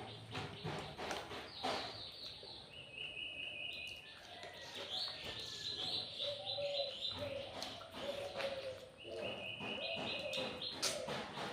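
A songbird singing several rapid trilled phrases of repeated high notes, with a lower call running beneath. Scattered short clicks sound over it, fitting the mouth and hand sounds of someone eating.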